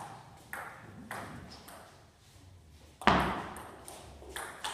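Table tennis ball clicking off bats and the table in a doubles rally. Several light hits come about half a second apart, then a short pause, then a much louder sharp hit about three seconds in, with more hits near the end.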